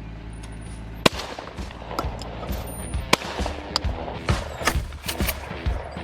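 Background music with sharp shotgun shots over it, the two loudest about one second in and about three seconds in.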